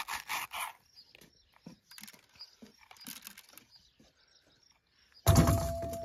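Stainless steel pepper corer twisting into a pepper, several quick crunching scrapes in the first second, then small clicks. About five seconds in, louder crunching starts again with a thin steady tone under it.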